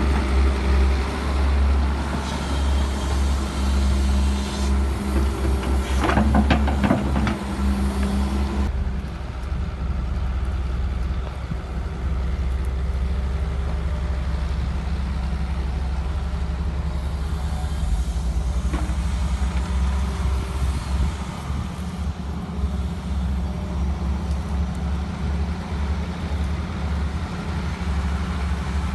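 Heavy diesel engine of an excavator running steadily, with a burst of sharp cracking knocks about six to eight seconds in.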